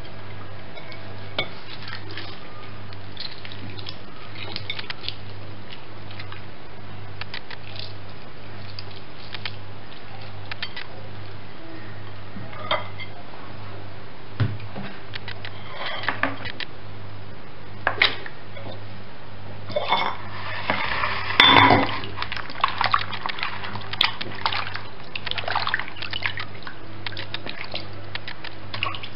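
Clinks and knocks of a plate and plastic basin, with water splashing, as raw chicken is handled and rinsed at a sink. The clatter grows busier in the second half and is loudest a little past two-thirds through, over a steady low hum.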